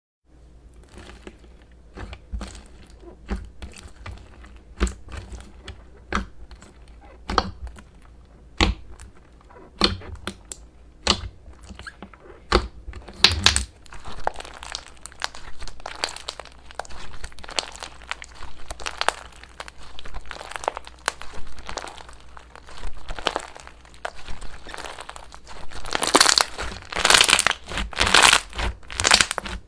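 Slime being squished and worked by hand: a string of sticky clicks and crackling pops, growing denser and louder near the end.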